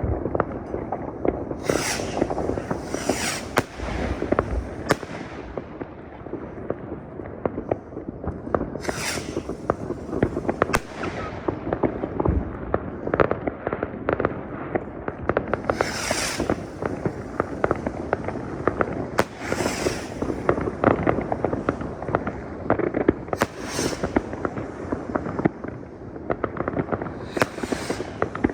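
New Year's fireworks and firecrackers going off without a break: a dense crackle of many bangs and pops, with a louder hissing burst every few seconds.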